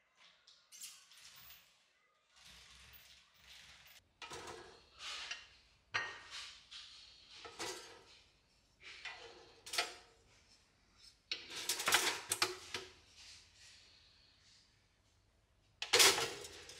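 A run of separate clinks and clatters from kitchen handling of dishes, utensils and a two-slice pop-up toaster, with a sharp clack near the end.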